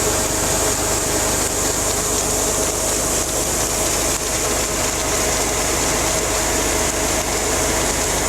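Heavy engine and machinery running steadily: a constant drone with two steady whining tones and a high hiss, with no change in speed.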